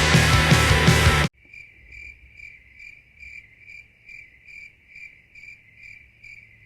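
Rock music cuts off abruptly about a second in. A steady series of short high chirps follows, evenly spaced at about two a second, over a faint low hum.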